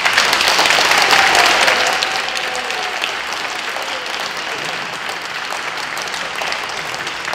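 A crowd applauding, starting suddenly, loudest in the first two seconds, then settling into steady clapping.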